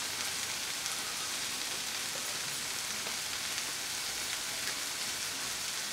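Steady sizzle of mushrooms and onions sautéing in olive oil in a pot, with a few faint clicks.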